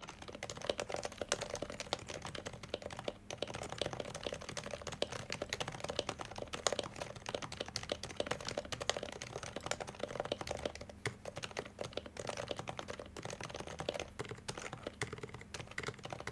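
Fast, continuous typing on an HHKB Pro 2 Type-S keyboard with lubed, silenced Topre switches: a dense run of muted, deep keystrokes that stops abruptly at the very end.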